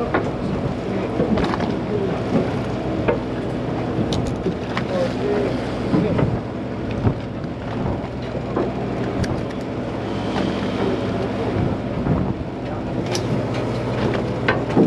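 A party boat's engine running with a steady drone, under wind on the microphone, with a few sharp knocks and clicks scattered through.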